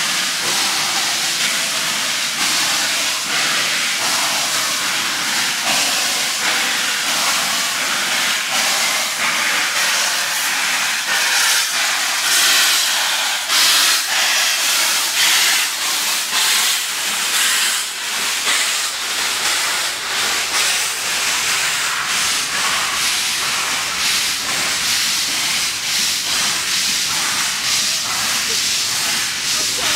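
LNER K1 class steam locomotive 62005 pulling out of a station with its cylinder drain cocks open. Loud steady hiss of escaping steam, broken by many short strokes as it gets under way and its carriages roll past.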